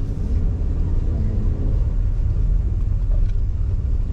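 Steady low rumble of a car driving along the road, engine and tyre noise heard from inside the cabin.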